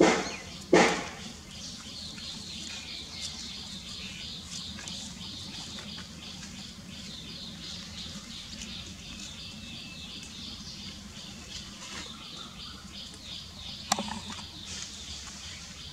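Steady, rapid, high-pitched animal chirping in the background. Two loud, sharp sounds come close together at the start, and another near the end.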